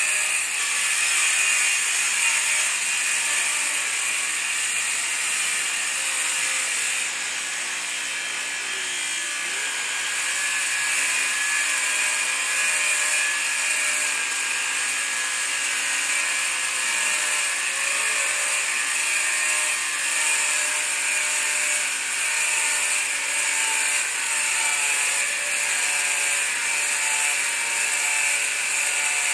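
A machine running steadily: an unbroken mechanical noise, mostly high-pitched.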